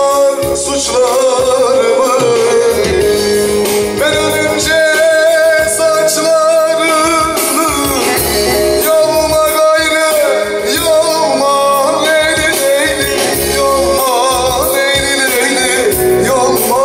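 Live Teke-region Turkish folk song: a male voice singing over a bağlama (long-necked saz) and an arranger keyboard's rhythm and backing, with a steady beat.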